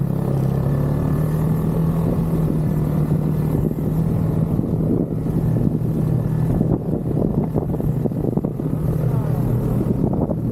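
Snowmobile engine running at a steady pitch while riding, with rough rattling and wind on the microphone.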